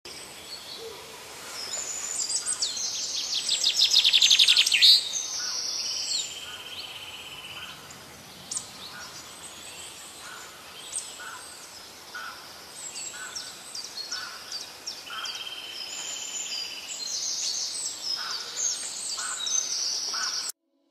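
Several birds calling together: repeated short chirps throughout, a loud rapid trill that builds to about four or five seconds in, and long even high notes twice, over a faint steady hiss. The birdsong cuts off suddenly just before the end.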